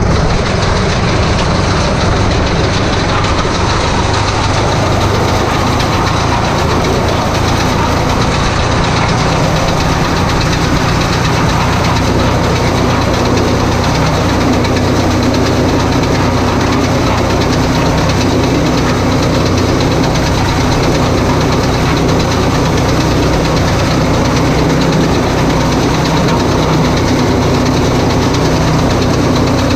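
Tractor engine running steadily while towing a round baler across mown hay, with a dense rushing noise over it, typical of strong wind on the microphone. A steady higher hum joins about twelve seconds in.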